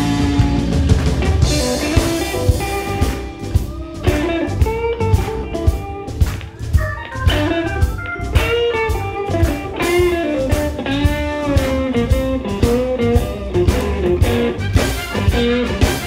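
Live blues band with an electric guitar solo on a Stratocaster-style guitar: bent, sliding lead notes over steady drums and bass.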